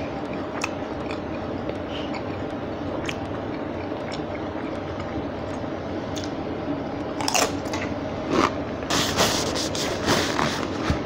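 Someone biting and crunching a Spicy Nacho Doritos tortilla chip dipped in queso: a run of sharp crunches starting about seven seconds in, over a steady low hum.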